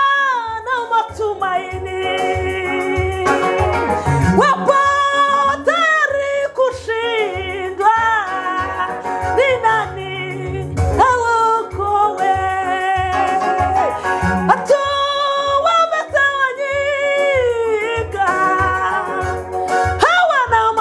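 A woman singing a gospel song with strong, sliding phrases over backing music with a steady beat of about two pulses a second.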